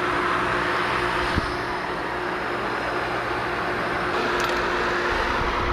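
Pool filter pump running steadily, an even rushing hiss over a constant motor hum, as it circulates water and builds pressure in the freshly cleaned cartridge filter.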